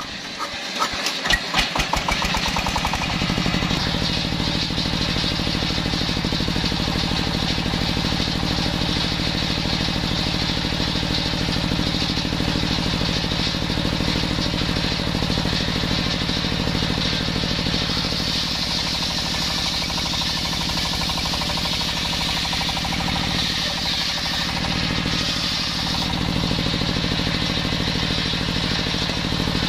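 Small single-cylinder diesel engine started, its knocks quickening over the first two seconds until it catches, then running steadily as it drives a homemade circular sawbench. The large blade rips a jackfruit log into slabs.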